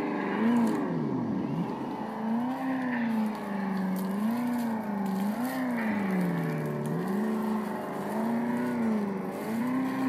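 Electric motor and gear whine of a Traxxas TRX-4 RC rock crawler, rising and falling in pitch over and over as the throttle is worked to crawl over rocks and roots.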